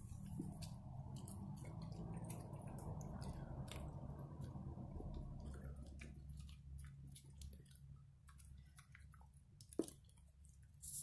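Dog eating wet dog food from a plastic bowl: wet chewing with many small clicks, busier in the first half.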